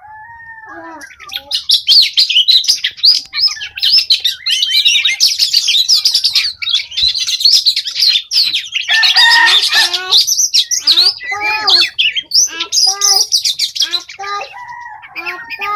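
Oriental magpie-robins singing loudly in a dense run of fast, high chirps and whistles. Lower-pitched curved calls join in from about nine seconds.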